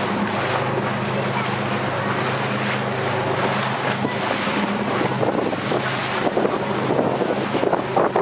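A boat's engine runs with a steady low hum under wind and the splash of choppy water. Wind buffets the microphone, gustier in the second half.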